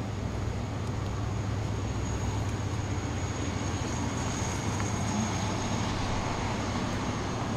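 Steady low rumble of vehicle traffic under the even hiss of gentle rain, with a thin high whine over it.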